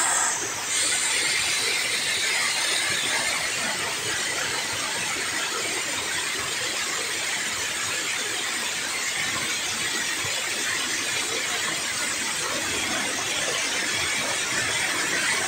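River water rushing steadily over a concrete weir spillway and churning into white foam below it.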